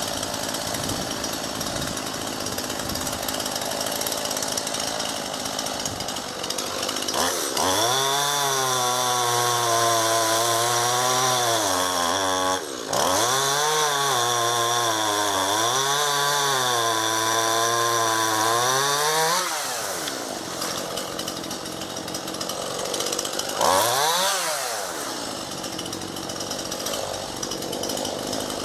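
Two-stroke chainsaw cutting a fallen ash branch. The engine is held at high revs for about twelve seconds, its pitch sagging and recovering under the load of the cut, with a brief drop partway through. Then it drops back to a lower running note with one short rev near the end.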